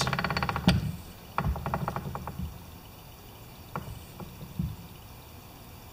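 MTD lawn tractor differential gears being turned by hand with the housing open, metal teeth clicking: a fast run of clicks, a slower run about a second and a half in, then a few single clicks.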